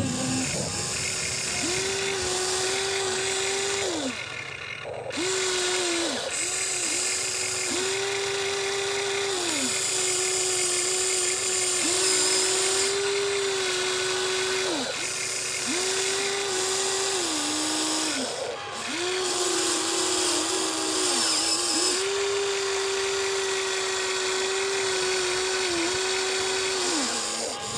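Electric motors and gearboxes of a Huina 1593 RC excavator whining as it digs, in repeated runs of one to three seconds, the pitch dropping as each movement ends.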